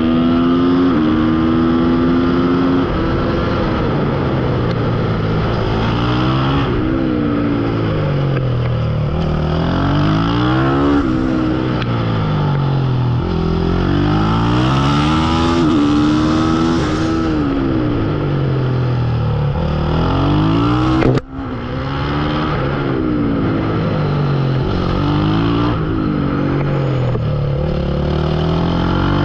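Supermoto motorcycle engine at full race pace, its pitch repeatedly rising as it accelerates and dropping back as it brakes into corners. One sharp click with a brief dip in level about two-thirds of the way through.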